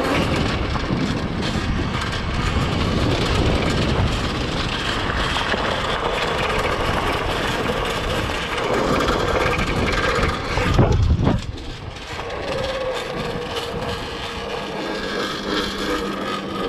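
Electric pit bike with a QS Motor 2000 W mid-drive being ridden: a steady rush of knobby tyres on the dirt trail and wind on the microphone, with a faint motor whine that wavers in pitch. About eleven seconds in comes a brief, louder low rumble.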